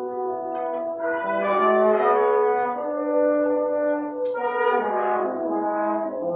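Student orchestra playing held chords in which the brass stand out, the harmony shifting every second or so, with two short bright accents, one near the start and one about four seconds in.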